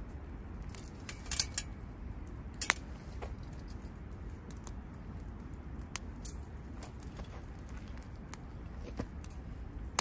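Wood fire in a folding stainless fire pit crackling, with scattered sharp pops and a few louder clicks about a second and a half in and near three seconds. A sharp metal clink at the very end as a steel grill frame is set over the pit.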